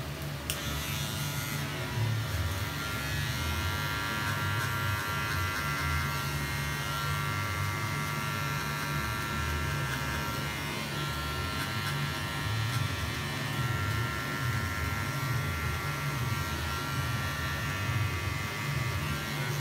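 Electric hair clippers running with a steady hum while cutting a child's short hair at the back of the head and nape.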